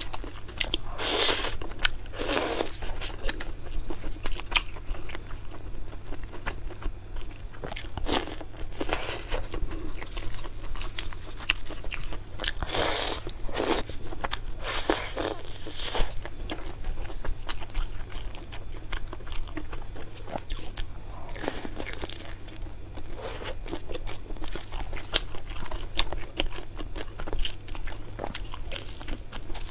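Close-miked eating: a person biting and chewing skewered sausage and braised meat, with many short wet mouth clicks and several louder bites scattered through.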